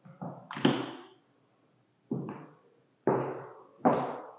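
Footsteps on a hardwood floor: about six irregular thuds, each sudden and fading over roughly half a second.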